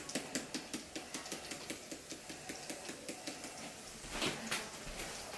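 A seasoning shaker shaken over a frying pan: a quick, even rattle of about five or six shakes a second that stops near the end, followed by two knocks.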